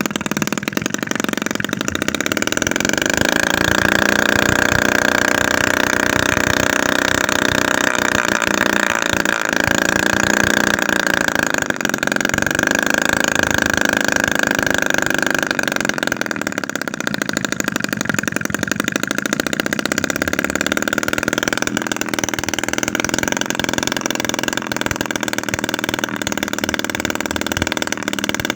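Homemade 7cc two-stroke engine (25 mm bore, 16 mm stroke), built from a used refrigerator compressor, running continuously with a high-pitched buzz; its speed wavers up and down slightly.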